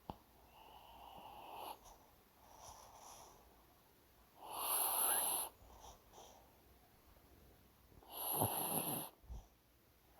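A dog snoring in its sleep: softer breaths, then two louder snores, one about halfway through and one near the end.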